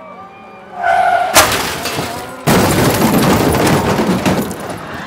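Race car crash sound effect: a brief squeal, then a loud crash about a second and a half in, and a second, longer crash a second later that dies away over about two seconds.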